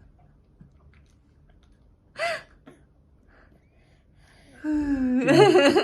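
Vocal sounds from a person: a brief high-pitched sound about two seconds in, then a longer voiced sound that starts about four and a half seconds in.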